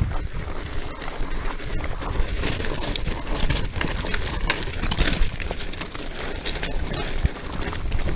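Mountain bike rattling down a loose, rocky trail: tires crunching over rocks with a dense run of irregular clatters and knocks from the bike.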